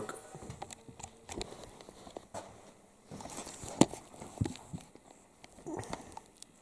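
Scattered footsteps and knocks as a person moves about among tools and clutter, with one sharp click a little under four seconds in.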